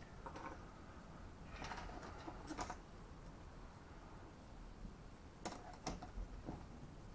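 Small parts being handled and set down on a workbench: faint rustling with a cluster of light clicks and taps about two seconds in, then two sharp clicks a little past five seconds.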